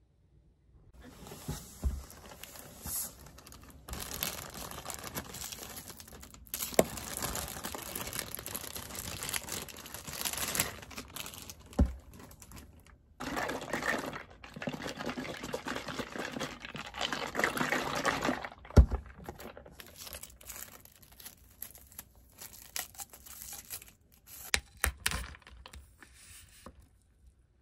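Thin plastic packaging crinkling and tearing in long stretches as a plastic-wrapped wrap and a bubble tea straw are unwrapped. A sharp knock comes a little past halfway, and scattered clicks and taps of cup and straw handling follow near the end.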